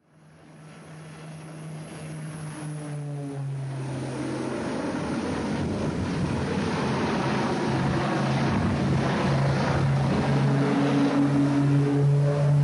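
Twin-engine propeller airplane's engines and propellers droning with a steady low hum, growing steadily louder as the aircraft flies closer.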